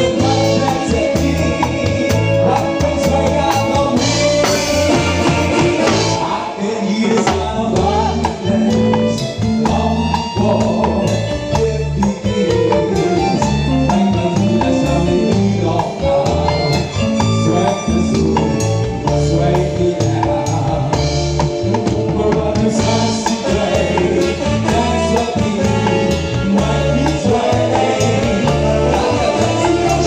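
Live band music with a singer, loud, with drum kit and cymbals over a steady bass beat.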